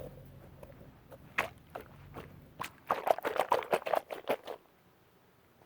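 Mesh squishy ball being squeezed and handled: a few scattered clicks, then a quick run of small crackling clicks for about two seconds that stops shortly before the end.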